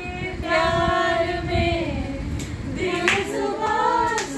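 Unaccompanied voice singing a song, with long drawn-out notes, and a few sharp claps about halfway through and near the end.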